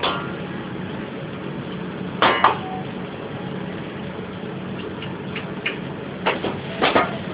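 Metal kitchen utensils clinking and scraping against cookware a few times: once at the start, twice about two seconds in, and several times near the end, over a steady low hum.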